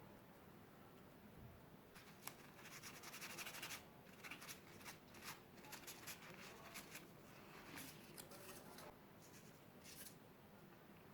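Faint scratching, rustling and clicking of hands working cardboard, as in cutting or handling it. A run of short scrapes and ticks starts about two seconds in and dies away near the end.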